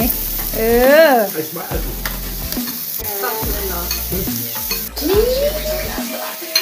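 Marinated pork sizzling on an electric grill plate, a steady frying hiss. A drawn-out vocal sound rises and falls over it about a second in.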